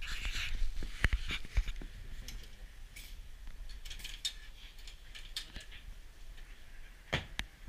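Balls being rolled on the lanes of a carnival horse-racing arcade game: scattered sharp clicks and knocks, thickest about a second in and again near the end.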